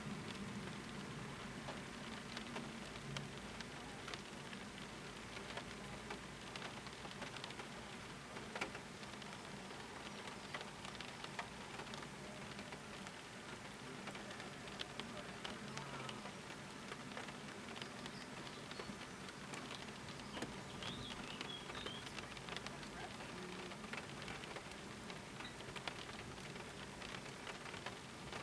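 Rain falling steadily, with many small drop ticks scattered throughout.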